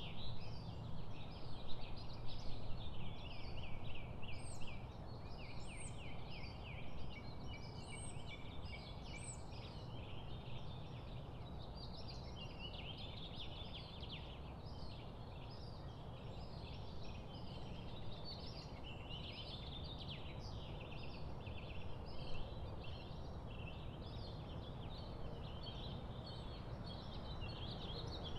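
Many small birds chirping and chattering continuously, with a few higher, thin hooked notes in the first ten seconds, over a low steady background noise.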